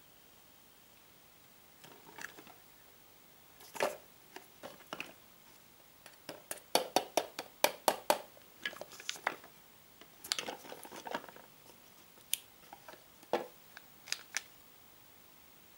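Hands handling and turning over a Kinder Surprise gift tin: irregular clicks and taps of fingers and the tin's edges. A quick run of sharper clicks comes about six to eight seconds in.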